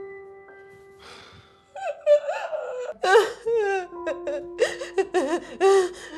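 A woman's wordless high-pitched vocal cries and gasps, broken into short bending pulses, starting about two seconds in. Steady held background music notes sound underneath.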